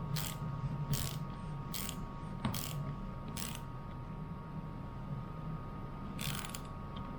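Ratchet wrench tightening a bolt: a short burst of clicking on each back-swing, about one a second five times, then a pause and one more near the end.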